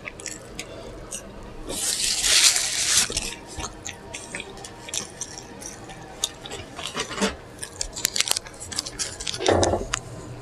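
Close-miked wet chewing and lip smacking of a burger, full of small sharp mouth clicks. About two seconds in there is a hissing rustle lasting about a second, and near the end a short, lower, fuller mouth sound.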